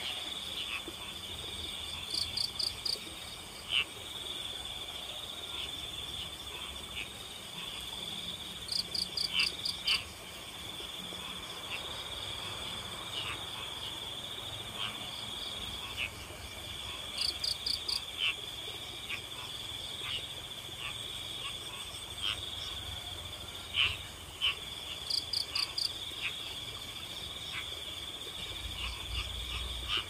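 A chorus of crickets trilling steadily at a high pitch, with a louder run of rapid high chirps repeating four times, about every seven or eight seconds. Short frog calls come in here and there.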